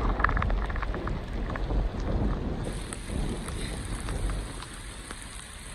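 Wind rumbling on the microphone over falling rain with scattered drop ticks, the wind easing off toward the end.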